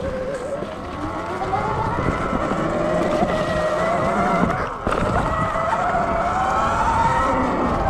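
Sur Ron Light Bee X electric dirt bike's motor and drivetrain whining under way, the pitch rising and falling as the throttle is worked, over a low rumble. The whine dips briefly about five seconds in, then climbs again.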